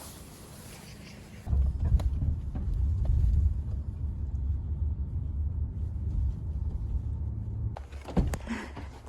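Low road rumble of a car driving, heard from inside the cabin. It starts abruptly about a second and a half in and cuts off sharply near the end, with a couple of light clicks.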